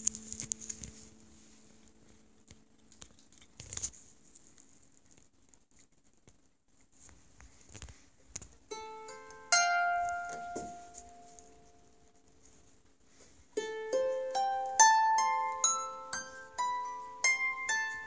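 Harp strings plucked one note at a time, each note ringing on after the pluck: a few notes about nine seconds in, then a quicker run of single notes from about thirteen seconds to the end. A single knock comes about four seconds in, in an otherwise quiet stretch.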